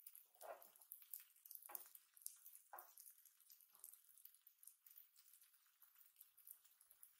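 Faint sizzling of okonomiyaki frying on an electric griddle: a steady soft crackle, with four or five short, soft sounds about a second apart in the first four seconds.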